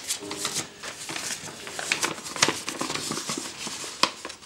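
A folded paper note being unfolded by hand: crisp paper crinkling and rustling, with sharper crackles about two and a half and four seconds in.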